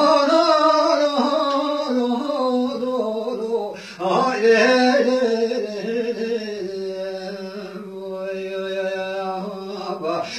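A man singing unaccompanied in long, drawn-out notes. He breaks for a breath about four seconds in, then holds one long steady note almost to the end.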